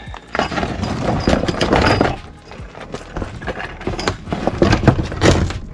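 Irregular knocks, thuds and crunchy clatter as the fishing kayak and its gear are handled and shifted on a gravel bank.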